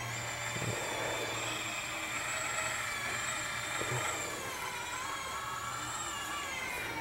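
A machine running steadily: a low hum under several high whining tones that drift slightly in pitch together.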